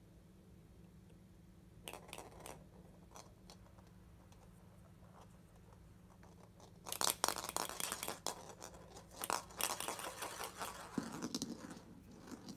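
Hollow plastic capsule toy clicking and scraping over a wooden floor as it is knocked about between a hand and a cat's paw: a few scattered clicks about two seconds in, then a dense run of scrapes and knocks from about seven seconds on.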